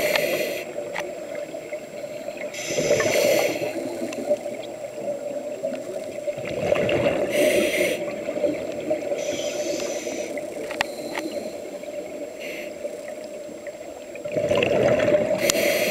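Scuba diver breathing through a regulator underwater: bursts of hissing and bubbling breath noise roughly every three seconds, over a steady low hum.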